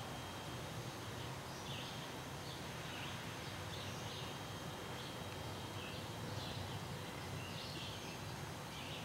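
A bird chirping outdoors: short high chirps, roughly one or two a second, over steady low background noise.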